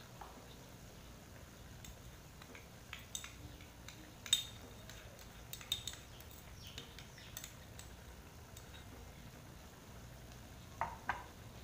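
Scattered light clinks and taps of a spatula against a small ceramic cup and the steel wok as sauce is scraped into the pan, the loudest about four seconds in and two close together near the end, over a faint low hum.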